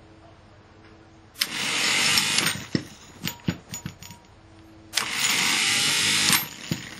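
Worx 36 V cordless lawn mower's bare DC motor switched on twice with its on-off switch. Each time it jumps straight to full speed, runs about a second and cuts off right away, with a few clicks as it stops: a plain on-off switch with no speed control.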